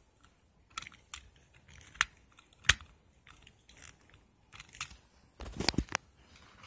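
Close handling of a die-cast Matchbox toy fire truck: a few sharp clicks and taps, then a denser cluster of clicks and rubbing about five and a half seconds in.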